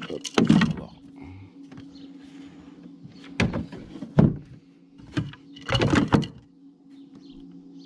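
Plastic hatch cover of a fishing kayak's pedal-drive well being handled and pressed shut: a handful of hollow plastic knocks and rattles, the last cluster near the end as it seats.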